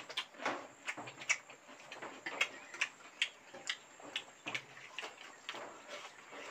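Eating sounds: irregular chewing clicks and lip smacks, a few a second, from people eating rice and fish by hand.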